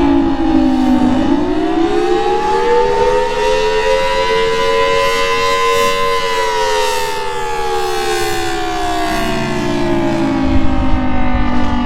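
Outdoor tornado warning siren wailing: its pitch dips in the first second, climbs slowly for about five seconds, then sinks again. A low rumble joins near the end.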